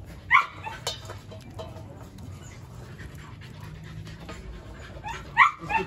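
A lion cub eating raw meat from a stainless-steel bowl, with soft chewing and breathing. Short high-pitched animal yelps come about a third of a second in and again twice near the end.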